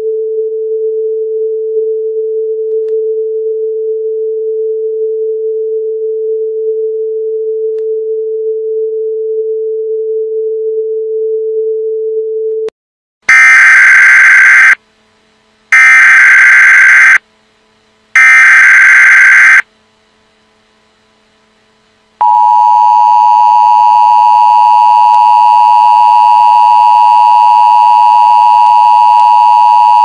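A steady single low tone holds for about thirteen seconds. Then come three loud bursts of warbling data tones, each about one and a half seconds long: an Emergency Alert System SAME header. After a short gap, the two-tone EAS attention signal blares loud and steady for about eight seconds.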